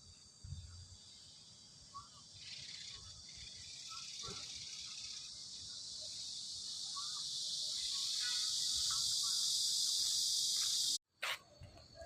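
Insects droning in a high-pitched, steady hiss that swells louder over several seconds and then cuts off suddenly near the end.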